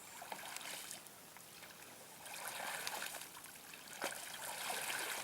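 Water splashing and trickling around a small rowboat as the oars dip and pull, swelling twice, with one sharp knock about four seconds in.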